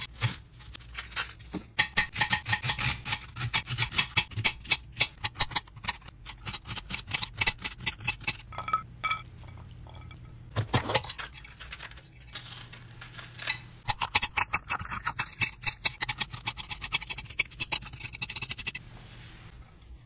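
Kitchen knife chopping onion and green pepper on a granite cutting board: fast runs of sharp knocks of the blade on the stone, several a second. Around the middle the chopping thins out, and the diced onion is swept off the board into a ceramic bowl.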